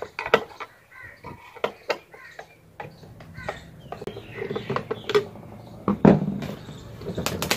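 Screwdriver turning out screws from a plastic blender base, with scattered clicks and knocks of the tool and the plastic housing being handled. A louder knock about six seconds in as the screwdriver is laid on the plastic table. Crows caw in the background.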